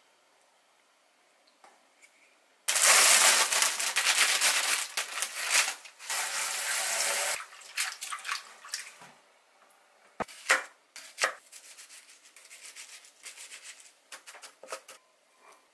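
Water running hard into a stainless steel bowl in a kitchen sink, starting about three seconds in, then hands swishing and rubbing leafy greens in the water. After a few knocks, a knife chops an onion on a wooden cutting board in quick taps near the end.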